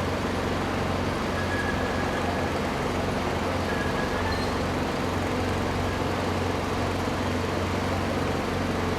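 Steady low drone of a running vehicle engine, with a constant hum and traffic-like noise and no distinct events.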